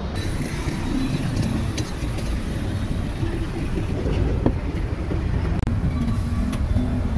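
Street traffic noise: a steady low rumble of passing vehicles, with a few faint clicks.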